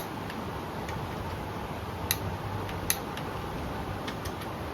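Click-type torque wrench tightening connecting rod cap bolts, giving sharp single clicks as it reaches its set torque: once at the start, then about two seconds in and again about three seconds in, over a low steady hum.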